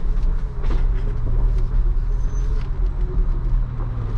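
Inside the cabin of a 2022 Ford Bronco Raptor crawling over a rutted dirt trail: a steady low rumble from its 3.0 L twin-turbo V6 and tyres, with a few light knocks and clicks as it rolls over the ruts.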